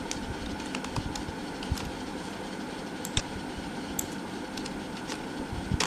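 Scattered clicks from typing on a computer keyboard and clicking a mouse, a few at a time at irregular intervals, over a steady background hum.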